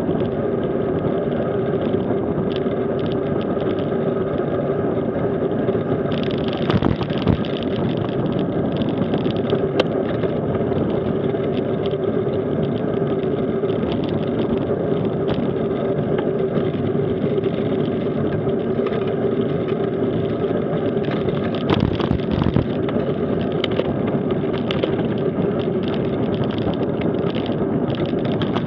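Mountain bike rolling fast down an asphalt road: a steady hum from its knobby tyres with rushing air noise, and a few sharp knocks and rattles from bumps in the road.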